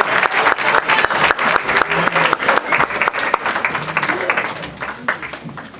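Audience applauding, with scattered voices among the clapping; the applause dies away near the end.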